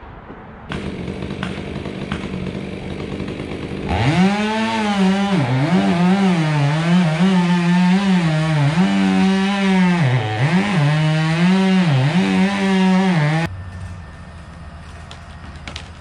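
Chainsaw running at high revs, then cutting into the pin oak's trunk from about four seconds in, its pitch dipping again and again as the chain loads in the wood. It stops suddenly near the end.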